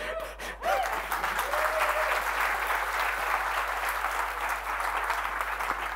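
Conference audience applauding in a large hall, the clapping starting about half a second in and holding steady, with a few brief voices calling out in the first two seconds.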